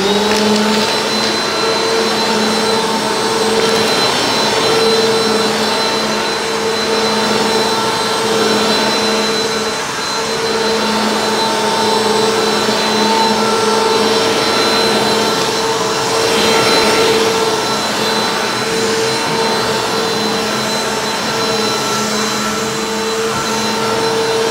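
Bissell PowerForce Compact (model 2112) upright vacuum cleaner switched on, its motor spinning up briefly and then running at a steady whine over the rush of air as it vacuums carpet. This is the test run of its newly replaced brush-roll belt.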